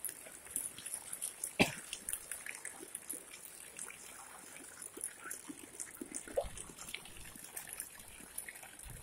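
Bare feet splashing and kicking through shallow floodwater on a paved lane, with small scattered splashes over a faint steady trickle of water, and one sharper slap about a second and a half in.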